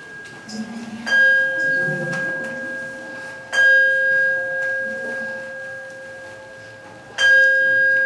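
Buddhist bowl bell struck three times, about a second in, at three and a half seconds and at seven seconds, each strike ringing on with a clear steady tone that slowly fades.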